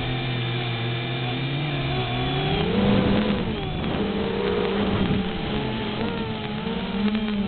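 XK X251 quadcopter's motors whining in flight. The pitch holds, then rises and falls as the throttle changes.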